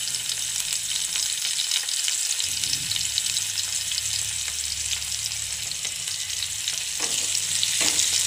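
Chopped onion and tomato sizzling in hot oil in a nonstick frying pan, with fine crackling all through. Near the end a spatula starts stirring them, scraping across the pan.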